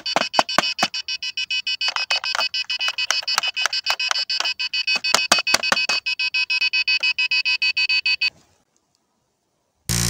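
A radio-control plane transmitter's beeper sounding a fast run of short, high electronic beeps, about five a second, as its buttons are pressed. The beeps stop suddenly near the end, and a loud noise cuts in at the very end.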